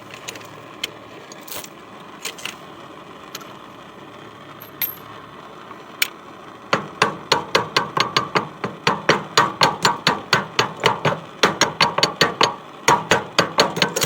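A hammer striking a stuck steel wheel hub on a Wheel Horse garden tractor's axle, working it loose: a fast run of ringing metal blows, about four a second, beginning about halfway through after a few scattered taps and clinks.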